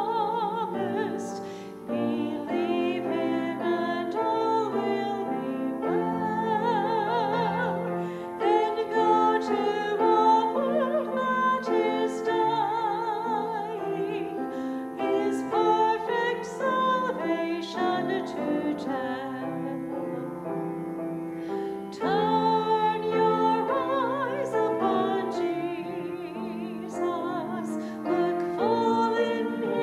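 A song, likely a hymn, sung by a voice with wide vibrato, accompanied by piano.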